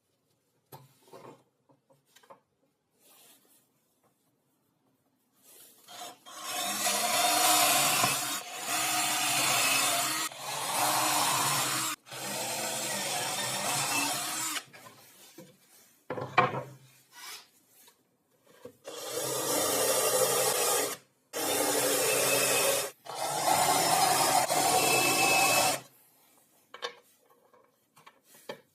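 Wood being rasped or sanded in a series of long strokes, about seven of them, each lasting roughly two seconds with short breaks between.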